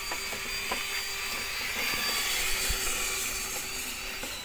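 Small electric motor and gears of a radio-controlled model construction vehicle whirring steadily with a high whine, with a few light clicks.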